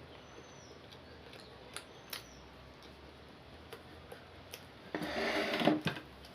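Eating sounds: scattered soft clicks and taps as rice is eaten, with a louder, noisier stretch of just over a second beginning about five seconds in.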